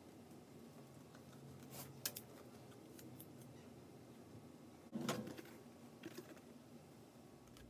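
Faint handling of a corrugated plastic sheet: scattered light clicks and crinkles as it is bent and worked by hand, with one louder rustle about five seconds in.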